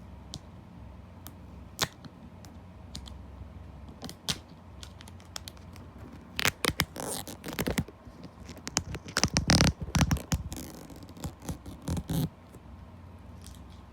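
A plastic DVD case and its packaging being handled and worked open by hand: scattered sharp clicks at first, then bursts of scratching and rustling about halfway through.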